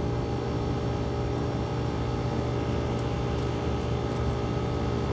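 1969 Fedders 8,000 BTU window air conditioner running steadily: its Tecumseh AJ reciprocating compressor hums along with the fan, an even drone with no breaks.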